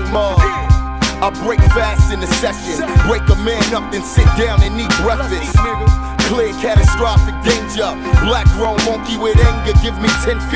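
Boom bap hip hop track: a male rapper rapping over a steady beat of kick and snare drums with a sustained bass line.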